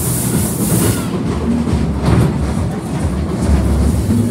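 Fairground witch-train ride cars running along their track, a loud steady rumble and clatter of the wheels with a rushing hiss.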